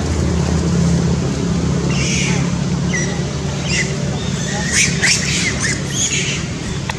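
Long-tailed macaques giving short, high squeals and shrieks during a chase, several in quick succession from about two seconds in, over a steady low hum.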